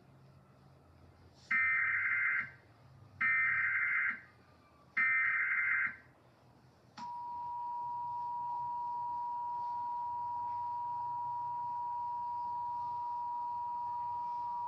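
Emergency Alert System SAME header: three data bursts of warbling digital tones, about a second each. About seven seconds in, a steady EAS attention tone starts and holds to announce the alert.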